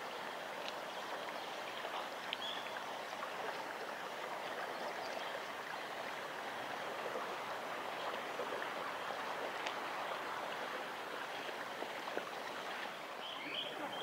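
Shallow stream water running steadily over stones, with a few faint, short, high bird chirps about two seconds in and again near the end.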